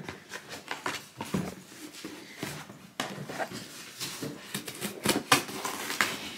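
A cardboard shipping box and its packaging being opened and handled: rustling with scattered light clicks and taps.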